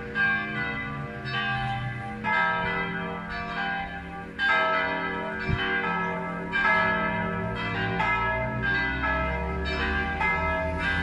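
Several church bells ringing together, a new stroke about once a second, each ringing on under the next so the tones overlap.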